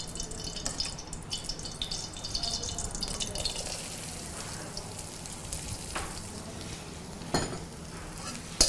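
Chopped almonds, pistachios and raisins frying in a little ghee in a metal karahi, sizzling softly as they are stirred with a spatula. There are small scrapes and ticks throughout, and two sharper knocks of the spatula on the pan near the end.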